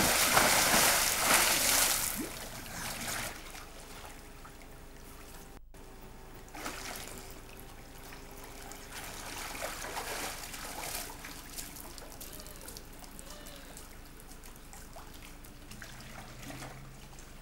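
Bodies splashing into a swimming pool, loud for the first two seconds or so, then softer splashing and lapping as a swimmer moves through the water. The sound drops out briefly about six seconds in.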